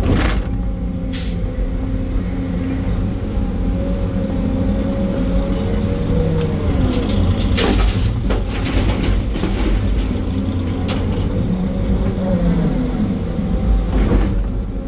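Sany 385 excavator running under load, heard from inside the cab: the diesel and hydraulics hum steadily, their pitch dipping and rising as the boom swings and the bucket works. The bucket clatters on rock at the start and end, and a load of rock and soil crashes into a dump truck bed about eight seconds in.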